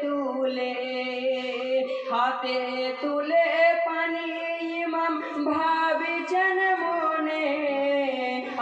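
Voices singing a Bengali marsiya, a Muharram lament for Husain, in long held notes that slide slowly between pitches.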